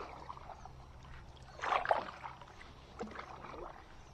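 Kayak paddle strokes splashing through lake water: a louder stroke a little under two seconds in and a softer one about a second later.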